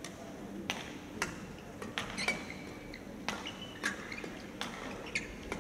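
Badminton rally: a racket strikes a shuttlecock in sharp, crisp hits roughly every half second to a second, with a few short high squeaks from court shoes on the mat.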